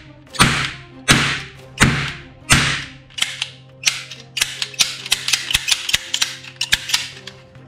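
Two toy cap-gun revolvers firing: four loud cap bangs about 0.7 s apart, each trailing off, then a fast run of sharp hammer clicks and smaller snaps that stops near the end.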